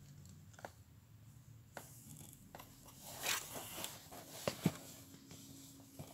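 Cardboard scratching and rustling as a kitten shifts and paws inside a box: scattered scrapes, a brief rushing scrape a little after three seconds, and two sharp clicks about a second later, the loudest sounds.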